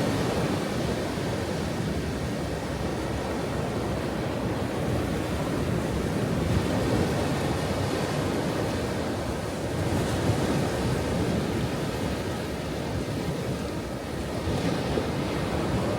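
Ocean waves breaking and washing on a shore in a continuous rumbling surf, swelling gently with a few stronger surges.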